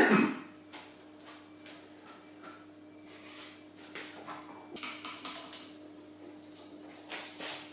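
Light clicks, taps and clinks of small items being picked up and handled on a kitchen counter, over a steady low hum. A louder noise dies away right at the start.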